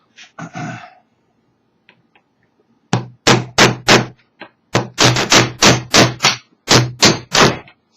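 Hammer tapping a pin out of a Weihrauch HW97 air rifle's action, metal striking metal: four sharp taps about three seconds in, then a quicker run of about a dozen until the pin drives through.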